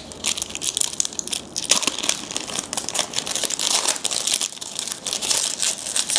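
A trading-card pack wrapper crinkling and crumpling as it is handled and torn open, a dense run of irregular crackles.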